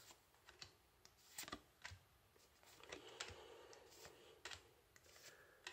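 Faint, irregular clicks and flicks of a handful of Yu-Gi-Oh trading cards being handled, each card slid from the front of the stack to the back.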